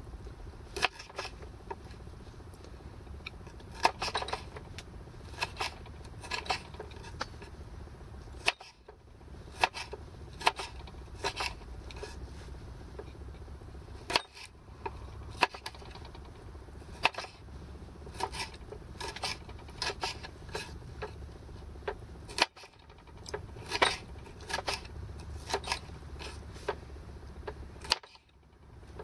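Knife chopping cherry tomatoes on a wooden chopping board: irregular taps of the blade against the board, over a low steady rumble. The sound breaks off briefly a few times.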